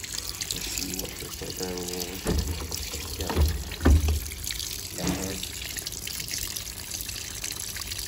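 Sharp ESX159 top-load washing machine filling: streams of water pouring down into the drum and splashing onto the laundry with a steady rushing sound. This is the fill stage that starts once the machine has weighed the load and set its timing. A few dull thumps land near the middle.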